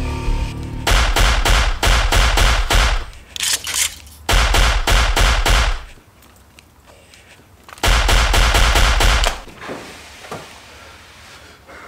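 Automatic gunfire in three bursts of rapid shots, each lasting one to two seconds, with heavy low thuds, as a film sound effect.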